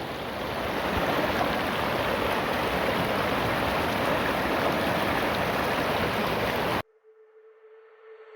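Steady rushing of a river over rocks, a little louder about a second in, then cut off suddenly near the end.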